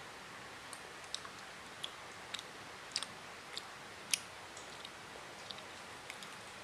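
A child eating with a small plastic fork: faint, irregular clicks and smacks of chewing and of the fork, about a dozen spread through, the loudest about four seconds in.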